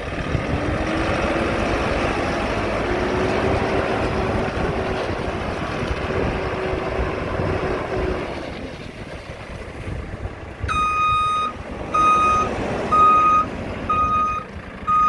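JCB 3CX backhoe loader's diesel engine running up under load with a rising then steady whine for about eight seconds, then easing off. Near the end its reversing alarm beeps five times, the first beep longer, as the machine backs up.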